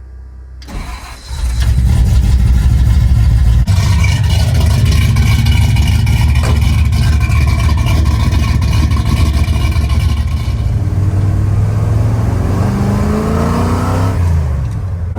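1973 Ford F-250's big-block FE stroker V8 starting from cold, catching about a second and a half in and then running loud and steady. In the last few seconds it gets a little quieter and its pitch climbs in rising sweeps.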